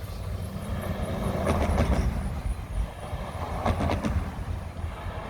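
Freight train rolling past: a steady low rumble from the cars, with clusters of wheel clicks over the rail joints about two seconds apart.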